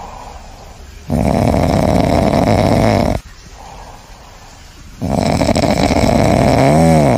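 Loud snoring: two long, rasping snores about four seconds apart, with quieter breathing between them. The second snore ends in a pitched tone that rises and falls.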